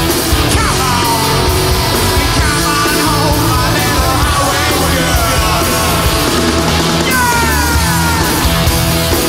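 Live rock band playing loud on electric guitars, bass and drums, with a high line sliding and bending in pitch over the band.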